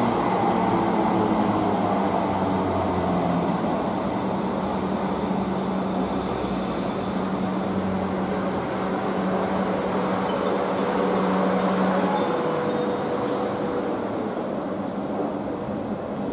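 South Western Railway Desiro electric multiple unit braking to a stop at the platform: the traction motors' whine falls in pitch as it slows, over a steady electrical hum. A brief high squeal comes near the end as it halts.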